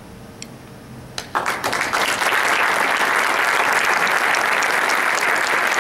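The last faint notes of a concert band die away, then an audience breaks into applause: a few single claps just over a second in, quickly swelling into steady, full applause.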